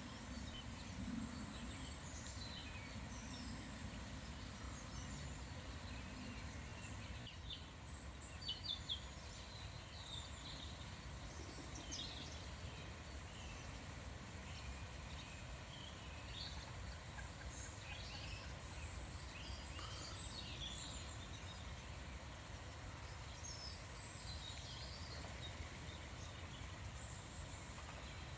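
Several small birds calling and singing at once: short scattered chirps and high trills, over a steady low background noise.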